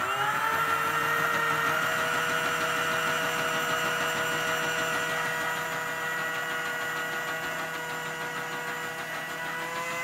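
Toy Hoover washing machine's small electric drum motor whirring, rising in pitch as it spins up and then running at a steady pitch.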